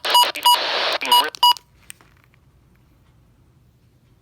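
Emergency Alert System end-of-message signal: short electronic beeps mixed with harsh bursts of data noise, which stop about a second and a half in.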